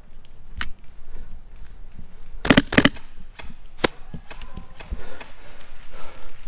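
Airsoft rifle firing single shots: sharp pops at irregular intervals, a close pair about two and a half seconds in, with fainter clicks between.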